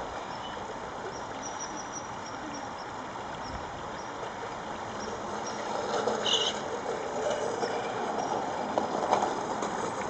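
Steady outdoor background noise by a river, growing a little louder after about five seconds, with faint high bird chirps through it and a brighter short bird call about six seconds in.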